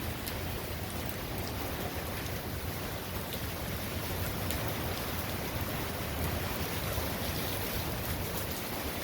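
Hurricane rain pouring steadily, driven by strong gusting wind, with scattered drops ticking on nearby surfaces.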